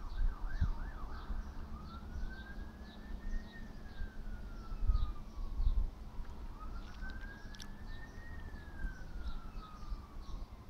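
Emergency-vehicle siren: a quick yelping warble at first, then a slow wail that rises and falls in long sweeps, about two full sweeps, over a low rumble.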